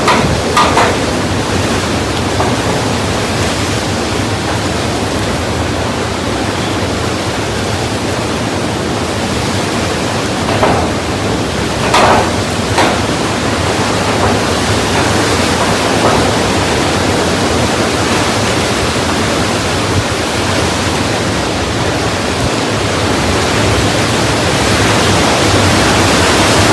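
Hurricane wind and heavy rain, a loud steady rushing hiss, with a few brief sharper spikes around ten to thirteen seconds in.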